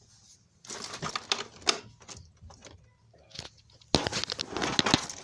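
Irregular plastic clicks and knocks from Milwaukee Packout tool cases and the cart being handled, with a dense run of sharp clicks about four seconds in.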